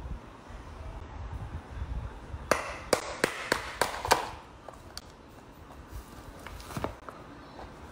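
A hollow chocolate heart is struck with a small wooden mallet about six times in quick succession until the shell cracks apart, giving sharp knocks and the crunch of breaking chocolate. Later come a few faint clicks of the broken pieces.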